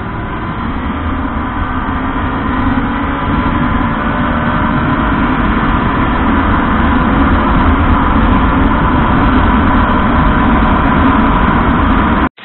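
Honda RS150R motorcycle's single-cylinder engine running loud and steady, slowly getting louder, then cutting off suddenly near the end.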